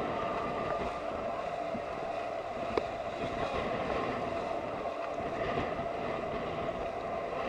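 Tour boat's engine running steadily, with wind on the microphone and one short click a little under three seconds in.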